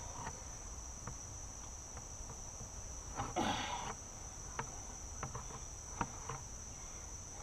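Steady high-pitched drone of crickets, with scattered faint clicks and a brief louder crunching scrape about three and a half seconds in as a Glock 78 field knife's unsharpened blade works through a plastic bucket.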